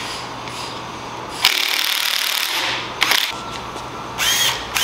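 Handheld cordless power tool running in short bursts while fasteners at a motorcycle's handlebar clamp are worked: one run of about a second, a brief blip, then a spin-up with a rising whine near the end.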